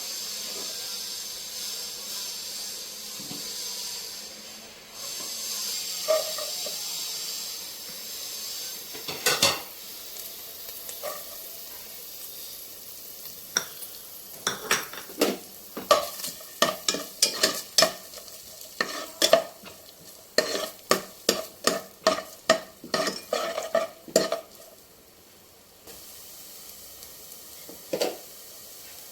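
Food sizzling in a hot pan while a metal spoon stirs it, with a steady hiss at first and then a long run of quick clinks and scrapes against the pan.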